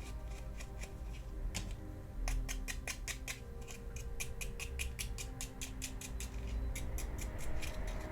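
Rapid, regular rubbing strokes on small diecast toy parts as old paint is removed, about four to five strokes a second, starting a second or so in, over steady background music.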